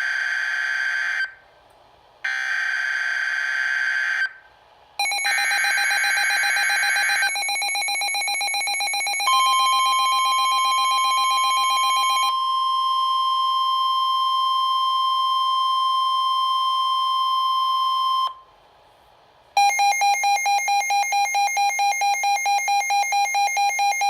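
NOAA Weather Radio emergency alert coming through a Midland WR-120 weather radio for a tornado-warning drill. The buzzy SAME digital header plays three times, and the radio's own pulsing alert beep starts over the third burst. Then the steady 1050 Hz warning alarm tone holds for about nine seconds, and after a short pause the radio's alert beeping starts again at about two to three beeps a second.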